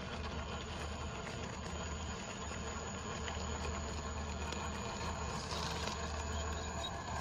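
RC rock crawler driving slowly over rock: a steady low hum from its electric motor and geared drivetrain, with scattered small clicks of the tyres and chassis on stone.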